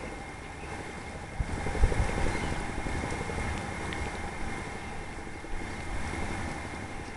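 Wind rumbling on the microphone, with a stronger thump about two seconds in and a faint steady high tone underneath.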